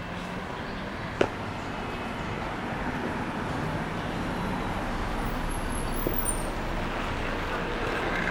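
Street traffic noise: a steady wash of passing vehicles that grows slightly louder toward the end, with one sharp click about a second in.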